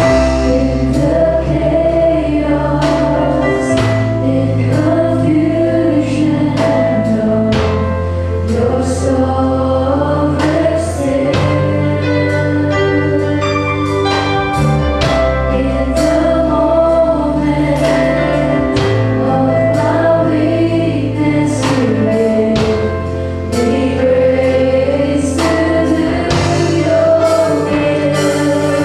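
A live worship band plays a slow gospel song: a female lead singer with backing singers over drum kit hits and long held bass notes.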